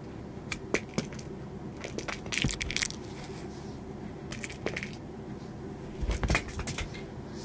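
A house cat moving about on a carpeted floor: a few light clicks in the first second, short rustling scuffles about two and a half and four and a half seconds in, and a louder scuffle with a low thud about six seconds in as the cat brushes past the camera.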